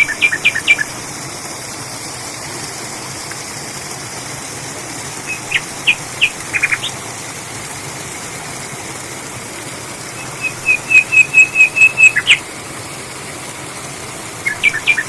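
A bird calling in short, sharp whistled notes, in four separate bursts, the longest a fast run of about ten even notes partway through, over a steady background hiss.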